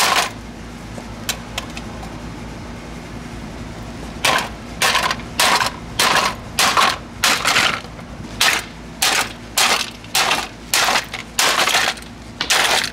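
A Hamilton Beach blender being smashed, struck over and over with crashing blows about two a second from about four seconds in, after one blow at the start and a quieter stretch.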